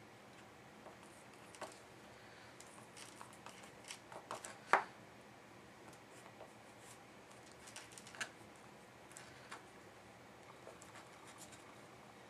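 Fingertips dabbing and rubbing paint onto a small stretched canvas: faint, scattered taps and scratchy rubbing, with one sharper tap just under five seconds in and another around eight seconds.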